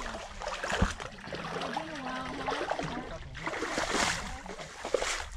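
Feet splashing as someone wades through ankle-deep water, the noisiest splashes a little past the middle, with indistinct voices in the background.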